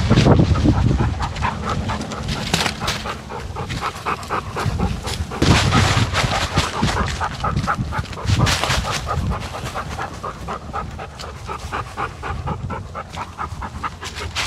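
A dog panting fast and rhythmically while it runs, heard close up from a camera strapped to its back. Dry leaves rustle and crunch under its feet, with louder rushes near the start, about five seconds in and about eight seconds in.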